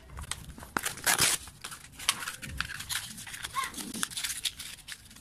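Hands handling abrasive paper and a clear plastic tray: irregular crinkling and rustling with light clicks. Near the end comes the first rubbing of the paper on the angle grinder armature's commutator, sanding off its burnt surface.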